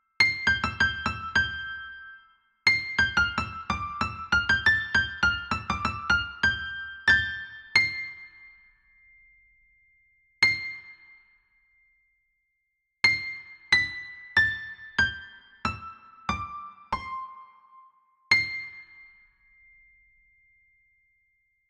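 Background piano music: quick runs of bright struck notes at first, then single notes that ring out with silences between, stepping down in pitch, and one last note left ringing near the end.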